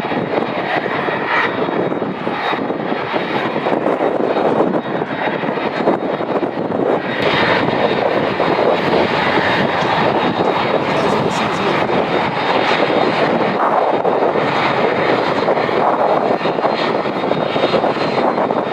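Jet engines of an Airbus A330 MRTT tanker aircraft running loud and steady, a little louder from about seven seconds in.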